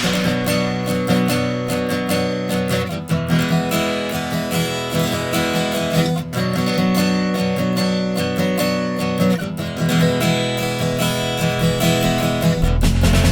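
Background music led by a strummed acoustic guitar, changing chords every few seconds.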